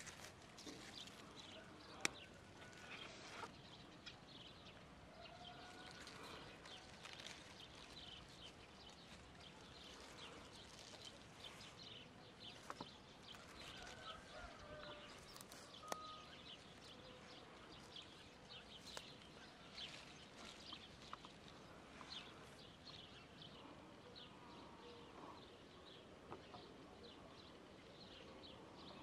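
Quiet outdoor ambience: soft rustling and crackling of dandelion leaves and stems being picked and gathered by hand, with a sharp click about two seconds in and faint bird calls now and then.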